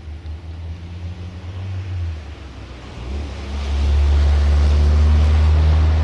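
Diesel locomotive engine running close by: a deep steady drone with a rumble over it, swelling about three seconds in and staying loud.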